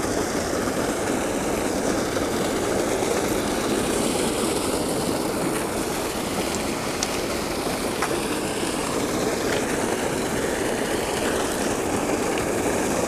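Steady rush of water pouring from a culvert pipe into a small creek pool, an unbroken low roar.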